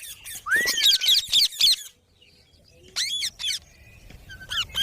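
Pet parrot making quick runs of high-pitched squeaky chirps and calls with bending pitch, then a pause and another short run about three seconds in.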